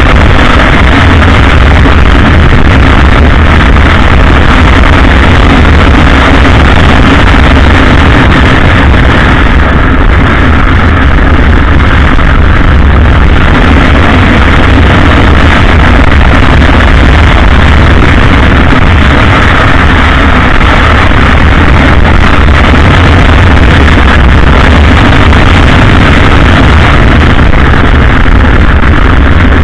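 Motorcycle riding along at speed: heavy, steady wind rush buffeting the mounted camera's microphone, with the engine running underneath.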